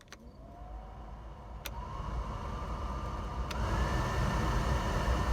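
BMW Z3 heater blower motor stepped up through its speeds. Three times there is a click, and then the fan's whine rises to a higher steady pitch while the rush of air grows louder. With its fan wheel newly adjusted to clear the housing, it runs without rubbing.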